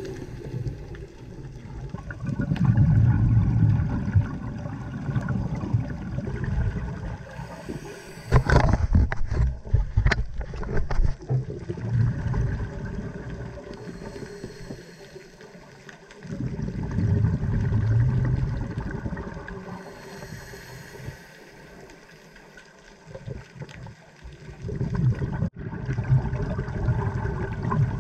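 Scuba diver breathing through a regulator underwater: several bouts of low bubbling as exhaled air streams out, with a brief hiss of inhalation between some of them. A few sharp clicks come about eight to ten seconds in.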